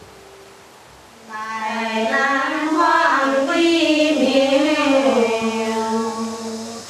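Female voices singing the Dong grand song (Kam grand choir) in polyphony, starting about a second in: one low voice holds a steady drone while higher voices move above it.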